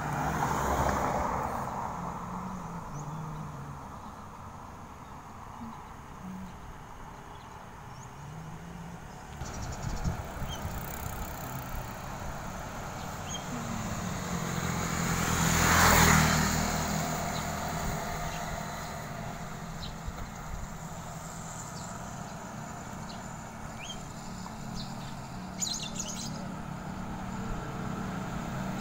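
Road traffic along a street: a motor vehicle passes close about halfway through, growing louder and then fading away, over a steady hum of more distant traffic. Birds chirp now and then.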